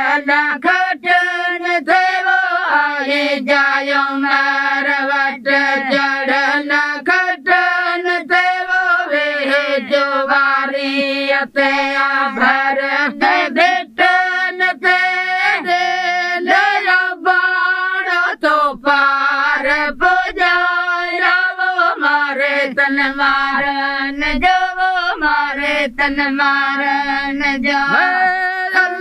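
Women singing a folk song without instruments, holding long, wavering notes.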